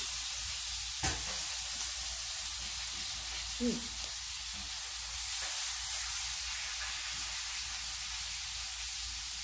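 A steady hiss throughout, with two faint clicks of a balut's eggshell being cracked and peeled by hand, about a second in and about four seconds in.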